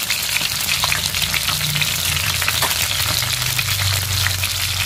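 Whole climbing perch frying in a pan of hot oil, sizzling with a dense, steady crackle of small pops.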